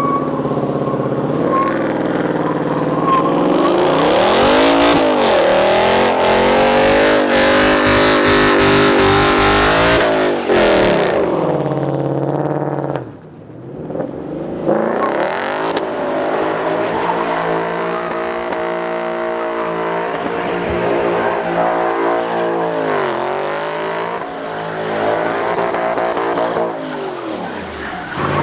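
V8 car doing donuts: the engine revs hard up and down while the tires squeal and spin, with a short drop in the noise about halfway through before the revving picks up again.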